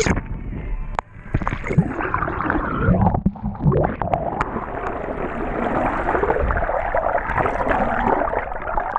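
Sea water churning and bubbling, heard underwater through a submerged action camera: a steady muffled rush with a few short knocks.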